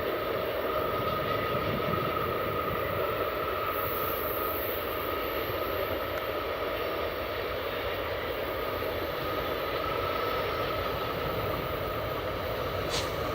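Train rolling past: a steady rumble of wheels on rail, with a faint high whine running through it.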